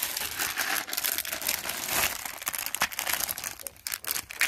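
Clear plastic jewelry bags crinkling and rustling as they are handled, a dense crackle of many small sharp clicks.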